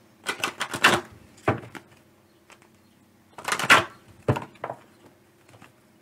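A deck of romance angel oracle cards being shuffled by hand: quick bursts of cards flicking and slapping against each other, with short pauses between the bursts.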